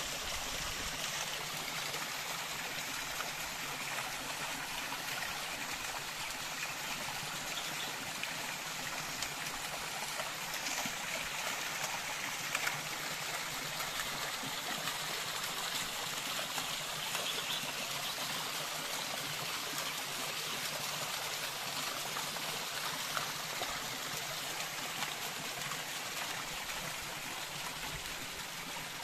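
A small spring waterfall trickling steadily down mossy rock and splashing into a shallow pool, an even rushing hiss of water with no breaks.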